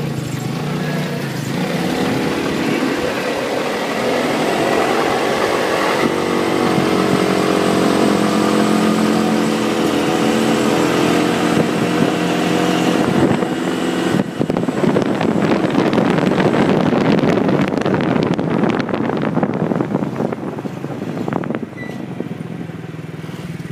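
Small vehicle engine running while driving along a street. It holds a steady note for several seconds, then turns rougher and noisier in the second half, with wind and road noise over the microphone.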